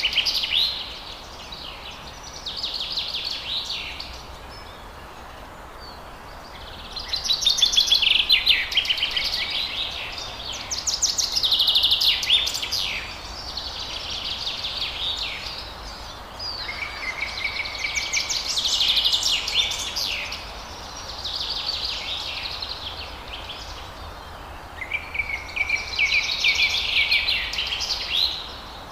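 Songbirds singing: short, rapid trilled phrases about every two to three seconds, a few opening with a held whistled note, over a steady background hiss.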